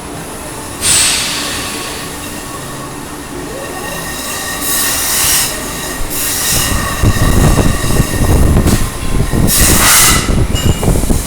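Small hobby CNC router's stepper motors whining as the axes move through a program, the pitch of the whine changing as the moves change. Hissing bursts and some low rumble come and go.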